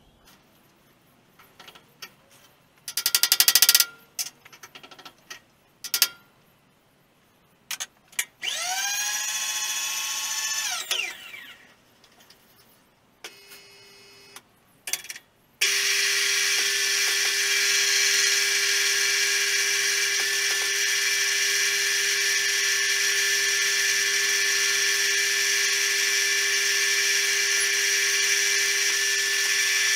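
Knocks and clicks as a workpiece is set in a milling machine vise. Then the mill's spindle spins up, runs for a couple of seconds and winds down. About halfway through it starts again and keeps running steadily with a whine, turning a 12 mm four-flute end mill.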